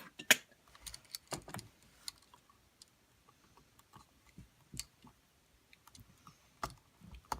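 Scattered light clicks and taps of hands working a wall outlet and its copper wires while connecting the power-side wires, the sharpest click right at the start and the rest fainter and irregular.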